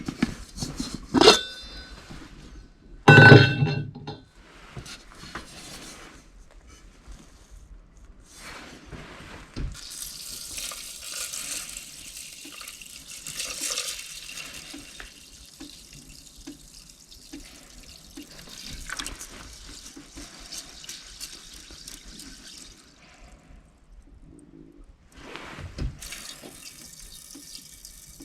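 Metal cookware clinking and clattering, loudest about three seconds in. Then water runs or pours into a container as a steady hiss for about twelve seconds, and starts again near the end.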